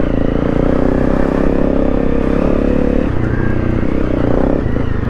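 Honda CRF250 Rally's single-cylinder four-stroke engine running under load while riding, its revs dropping about three seconds in and picking up again near the end.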